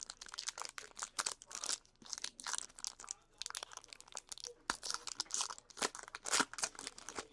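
A trading card pack's wrapper being torn open and crinkled by hand, a run of irregular crackles and rips.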